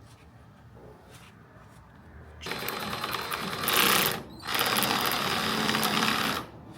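A power drill running in two long bursts, about two seconds in and again after a short break. The second burst holds steady almost to the end.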